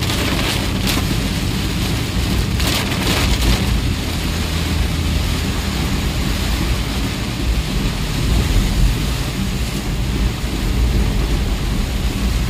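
Heavy rain on the windshield and body of a moving vehicle, with a steady low engine and road rumble underneath.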